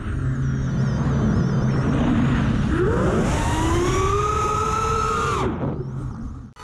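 FPV racing quadcopter's brushless motors and propellers whining over a rush of wind. The whine rises steeply in pitch about three seconds in as the throttle is opened, holds, then drops away about five and a half seconds in.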